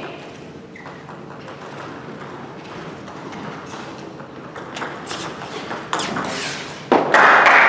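Table tennis ball clicking off the paddles and the table in a short rally, a string of quick sharp clicks in the second half. Near the end, applause breaks out suddenly as the point ends.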